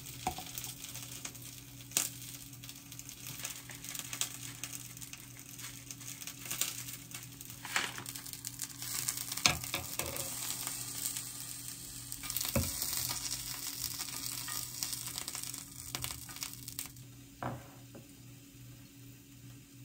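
Egg and mushroom pieces sizzling in a small frying pan; the sizzling fades out near the end. A few sharp clinks of chopsticks and dishes sound now and then.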